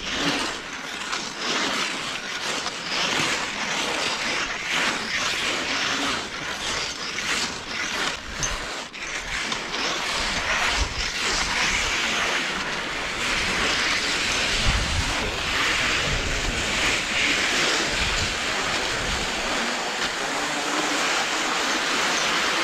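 Cross-country skis sliding and scraping on icy snow: a quick run of scrapes from striding in the first half gives way to a steady hiss of gliding. Wind noise on the microphone runs under it.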